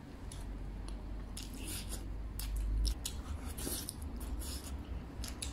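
Wooden chopsticks clicking and scraping against a ceramic rice bowl while someone eats, in a series of short, irregular strokes.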